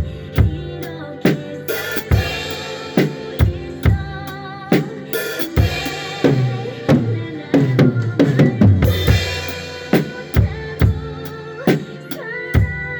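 Acoustic drum kit played along to a ballad's backing track with singing: steady kick and snare strokes, with cymbal crashes about two, five and nine seconds in.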